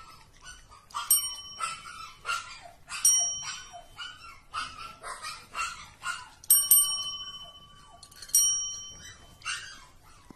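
Two desk service bells dinged again and again as cats press them, each ding ringing on briefly, the loudest pair about six and a half seconds in. Short scratchy sounds fill the gaps between the rings.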